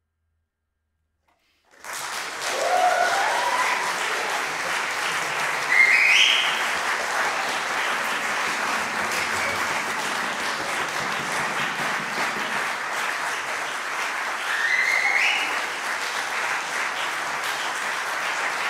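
Audience applause that breaks out suddenly about two seconds in and carries on steadily, with a few short calls rising in pitch heard over the clapping.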